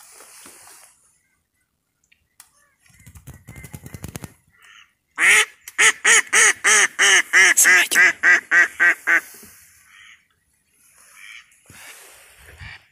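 A live decoy hen mallard quacking loudly, a run of about fifteen quacks over some four seconds, the typical calling of a decoy duck to draw passing ducks. Softer rustling comes before the quacks, and faint calls follow near the end.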